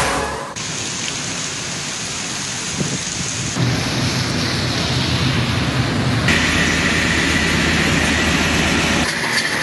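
Heavy rain falling, a steady hiss whose tone shifts abruptly a few times as one rain recording cuts to the next.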